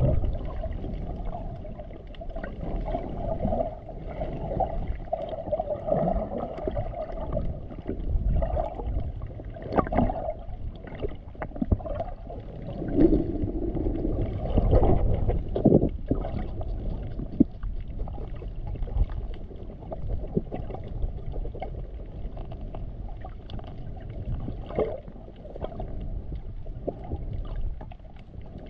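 Muffled underwater water noise picked up by a camera held under the surface: a low, shifting rumble of moving water with scattered small clicks and gurgles, swelling louder around the middle.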